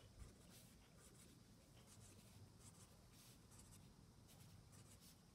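Felt-tip marker writing numbers on paper: faint, short scratching strokes repeated over a quiet room hum.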